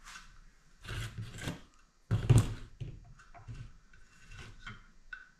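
The lower unit (gearcase) of a Mercury 9.8 HP outboard being worked up onto its midsection to seat the drive shaft: rubbing and scraping of the housings, with a heavier knock about two seconds in.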